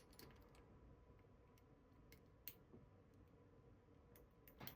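Near silence broken by a few faint clicks of a metal fidget toy's parts snapping into their spring detents, with two slightly louder clicks just before the end.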